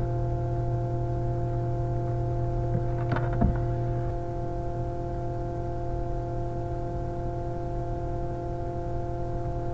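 A steady electrical hum holding several fixed pitches, with a brief faint sound about three seconds in.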